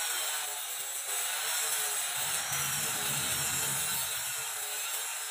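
Handheld angle grinder running steadily under load, its disc grinding hardened steel (reused car leaf spring) to finish the welded jaws of a homemade bonsai concave cutter.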